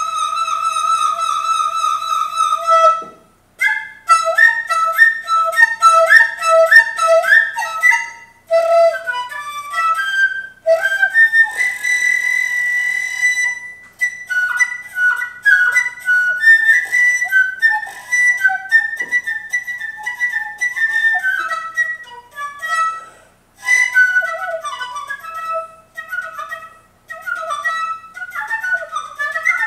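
A Chinese bamboo flute (dizi) playing a folk melody in short phrases. It opens on a long held note with vibrato, then moves into quick ornamented runs broken by brief pauses for breath, with a high held note about twelve seconds in.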